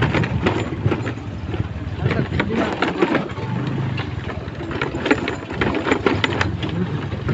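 Motorcycle engine running while riding, with wind buffeting a helmet-mounted microphone.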